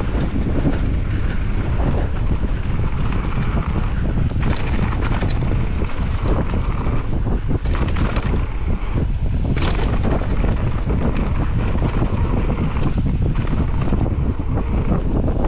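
Wind rushing over the microphone of a mountain bike riding fast down a dirt trail, with the knobby tyres rolling on dirt and frequent knocks and rattles from the bike going over bumps.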